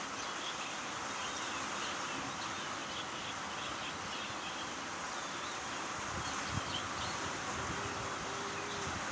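Steady hiss of rain with small birds chirping over it.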